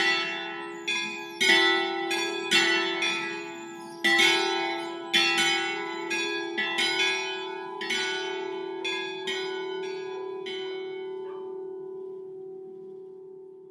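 Three rope-rung bronze church bells tuned E, F sharp and G sharp (cast by Angelo Bianchi in 1946) swinging to a close at the end of a full peal. The clapper strikes grow weaker and fewer and stop about eleven seconds in, leaving the bells' hum to die away.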